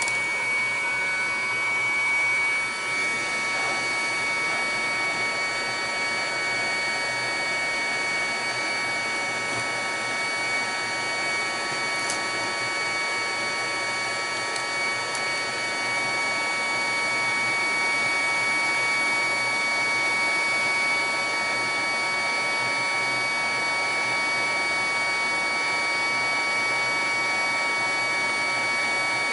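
A small electric motor whirring steadily, with several steady high whining tones on top and no pauses.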